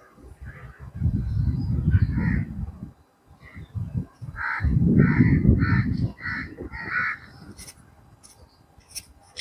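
A crow cawing: a couple of caws about two seconds in, then a run of about five caws around the middle. Two bouts of low rumble on the microphone, louder than the caws, most likely wind buffeting it.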